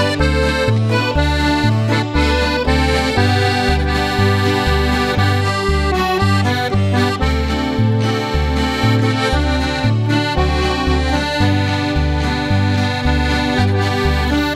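Background music led by accordion, in a lively traditional dance style, over a bass line that alternates between two low notes about twice a second.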